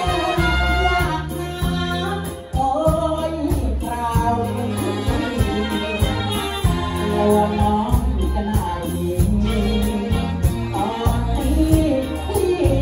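Live Thai luk thung band playing: saxophones and trumpet over electric guitar, bass and a drum kit, with a male singer on microphone.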